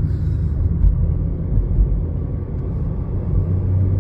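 Steady low rumble of road and engine noise heard from inside a moving car's cabin, with a couple of low thumps about one and two seconds in.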